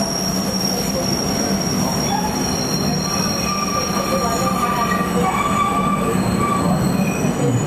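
PATH PA-5 subway train running, its steel wheels squealing on the rails in thin high steady tones over a constant low rumble; a lower squeal joins about three seconds in.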